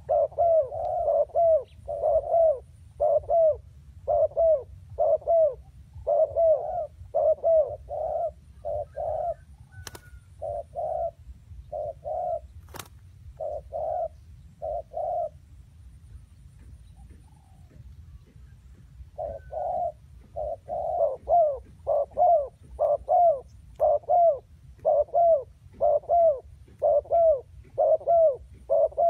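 Spotted dove cooing in a quick run of short, arched coos, about two a second, breaking off for a few seconds midway and then starting up again.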